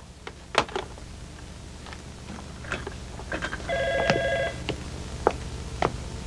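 A short electronic telephone ring sounds once, for under a second, about four seconds in. Scattered light clicks and taps come before and after it.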